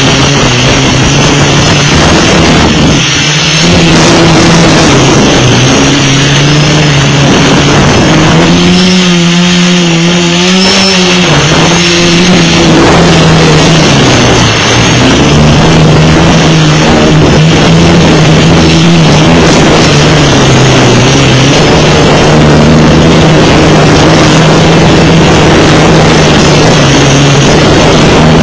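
Quadcopter's electric motors and propellers buzzing loudly, heard up close from a phone camera strapped to the frame. The pitch wavers up and down, rising about eight seconds in and dipping near the middle, over a constant rushing hiss.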